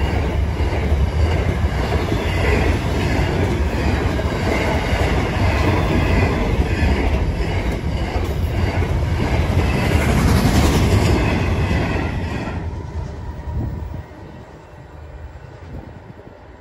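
Container wagons of a long intermodal freight train rolling past, with a steady rumble and clatter of steel wheels on the rails. The sound fades about twelve seconds in and drops away sharply around fourteen seconds as the last wagon goes by.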